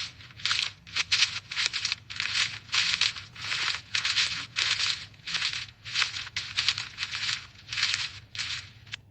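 Footsteps walking through dry fallen leaves: a steady run of crisp crunching and rustling steps, about two a second.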